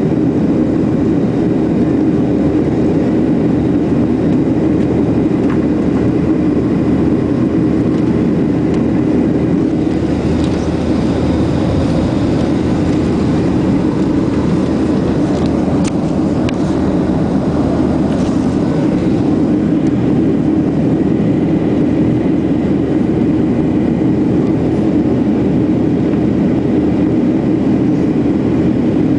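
Steady cabin roar of a Boeing 737-800 in its climb after takeoff, heard from a window seat: the CFM56-7B turbofans and rushing airflow. A few faint clicks come through in the middle.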